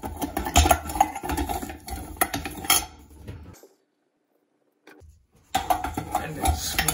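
Clicking, scraping and rubbing of a light bulb being twisted out of its socket inside a recessed shower light fixture, with hand and fixture handling noise. The sound cuts out almost completely for about two seconds in the middle, then the scraping and clicking resume.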